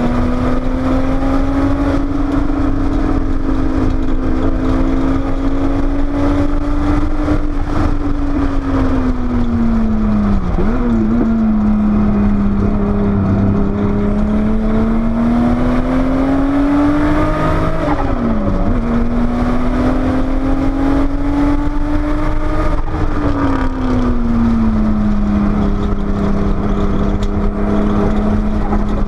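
Porsche 930 Turbo's air-cooled turbocharged flat-six on track, heard from on board, its note climbing under power and falling away as the car slows. It breaks sharply and briefly twice, about ten and eighteen seconds in, as gears change. A steady low road and wind rumble lies under it.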